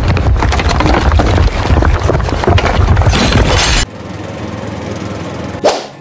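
Loud, rough engine-like rumble with a crackling texture that cuts off suddenly about four seconds in, leaving a quieter steady noise, then a sharp swoosh near the end.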